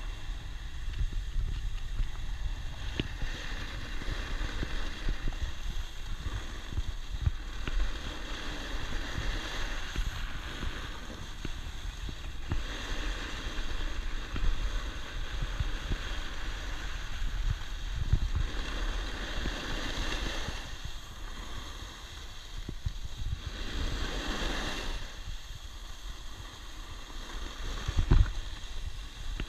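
Wind buffeting a body-mounted action camera's microphone during a run down a groomed ski slope, with the hiss and scrape of snow under the rider that swells and fades every few seconds.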